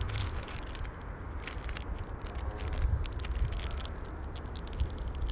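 A person eating a candy bar: soft crackling and scattered small clicks over a low, steady rumble.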